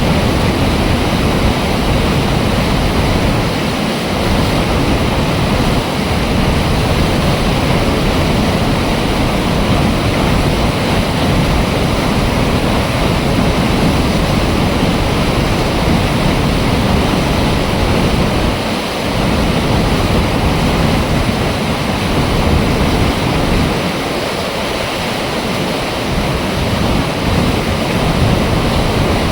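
Water rushing steadily through an opened dam flap gate, a loud, even rush of falling water.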